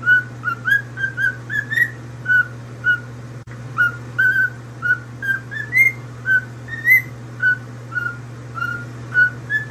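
Parrot whistling a run of short, clear notes, about two a second. Most notes sit at one pitch and some rise higher, over a steady low hum.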